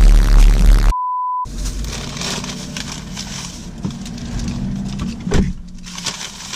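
A hip-hop song with a heavy beat cuts off about a second in, followed by a single steady electronic beep about half a second long. Then, at a lower level, a plastic shopping bag rustles and a small wrapped item is handled, with one sharp click near the end.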